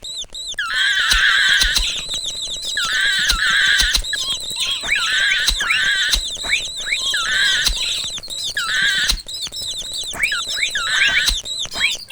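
Mouse squeaking sound effects: many short, high, wavering squeaks and quick chirps following one another in rapid, uneven succession.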